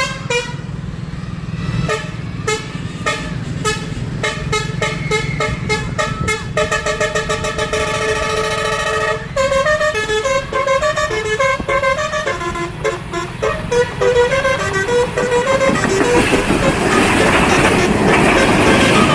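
Horn sound effects: a quick run of short rhythmic toots, then a long held chord, then a tune of short honks at changing pitches. Near the end a loud rushing noise builds up under it.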